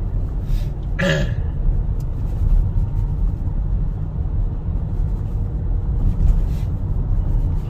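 Steady low road and engine rumble of a moving car, heard from inside the cabin. About a second in comes one brief voice-like sound that falls in pitch.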